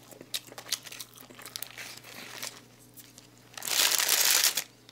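Paper food wrapper crinkling in the hands with many small sharp crackles, then a louder rustle lasting about a second, starting about three and a half seconds in.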